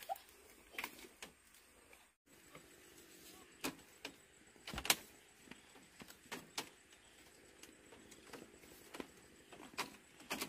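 Irregular sharp knocks and clicks, as of objects being handled and set down. The loudest comes about five seconds in.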